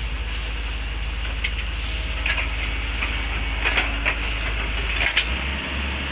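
Excavator's diesel engine running steadily with an even low pulse, with a few brief sharp sounds over it in the middle and near the end.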